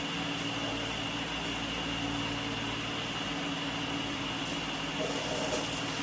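Steady mechanical hum with a constant low drone and a thin high whine, with a few faint light clicks or taps near the end.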